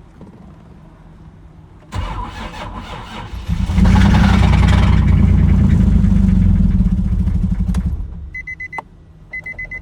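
Nissan 350Z's 3.5-litre V6 being cranked over for about six seconds, louder in its second half, with an unhealthy sound that the owner takes for rod knock. After it stops, a steady beeping warning chime starts.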